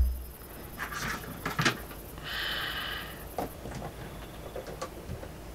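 Clear plastic tarantula enclosure being handled on a table: a few light taps and knocks, with a brief scraping rustle of plastic sliding on the mat about two seconds in.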